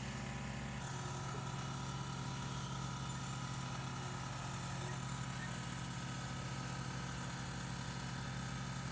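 Engine of construction machinery running at a steady idle, an even drone with no change in speed.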